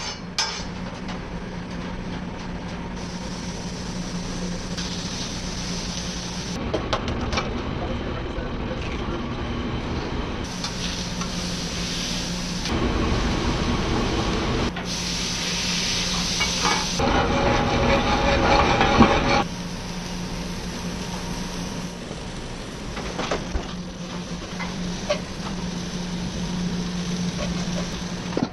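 Food sizzling on a flat-top griddle and an egg frying in a pan over a gas burner, the sizzle swelling louder in several stretches. A steady low hum runs underneath, with scattered clicks of metal utensils.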